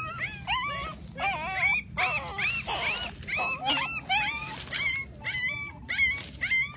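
A puppy that had been buried alive crying in distress: a rapid string of short, high-pitched whimpering cries, about two to three a second.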